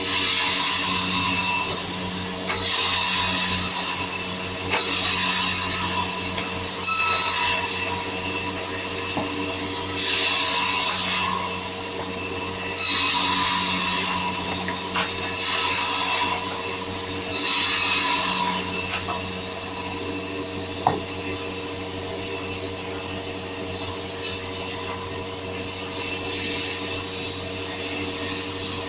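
A powered saw machine cutting wood over a steady machine hum. The cutting noise swells and drops back every two to three seconds in a series of cuts, then settles into steadier running for the last third.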